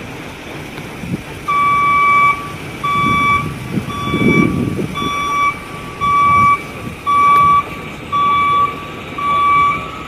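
A vehicle's electronic warning beeper sounding a steady single-pitch beep about once a second, starting about a second and a half in, over low engine and street noise.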